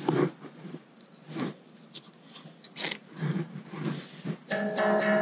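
Magnet-fishing rope being hauled in by hand, with short scuffs and knocks. About four and a half seconds in, a clear, bell-like ringing tone starts suddenly and slowly dies away.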